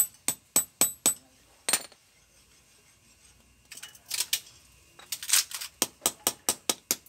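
Rapid, sharp metal clicks, about four a second, from a hand tool being worked on a small diesel engine during an oil change. The clicking stops for a couple of seconds, then two short scrapes, then it starts again near the end.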